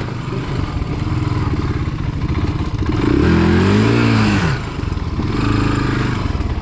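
ATV engine running, revving up and falling back about three seconds in, with a shorter rise near the end.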